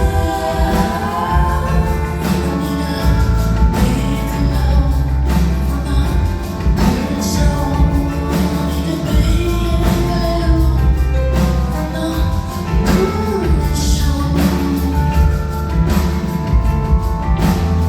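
A woman singing live over a full band, with heavy bass and a steady drum beat, in a concert hall.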